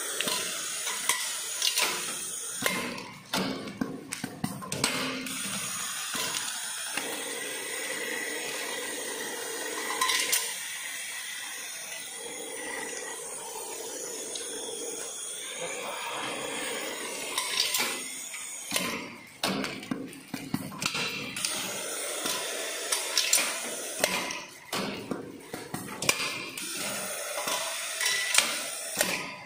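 Automatic bagging machine and bagged metal parts being handled: sharp clinks and knocks of metal plates in plastic bags, with plastic rustling, over a steady machine hum through the middle stretch.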